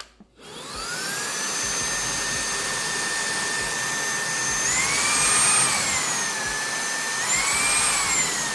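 Wyze cordless stick vacuum's motor spinning up to a steady whine, then rising and falling in pitch twice as the speed setting is switched, starting to wind down at the very end.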